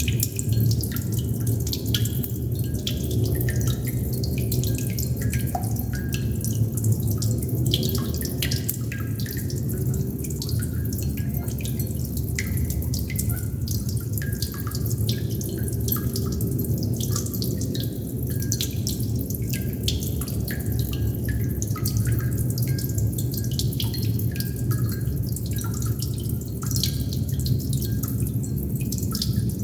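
Water droplets dripping steadily and irregularly, several short drops a second, each a brief note sliding down in pitch, over a steady low rumble.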